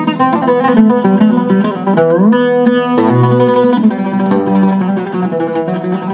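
A Zaryab oud with a cedar top and African mahogany back played solo: a melodic passage of quick plucked notes, with a rising slide of notes about two seconds in.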